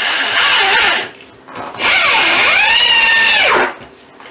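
Drill driving a wood screw through the floorboards into the joist below to stop the floor creaking, in two runs: one that stops about a second in, then a longer one whose motor whine dips and rises back to a steady pitch.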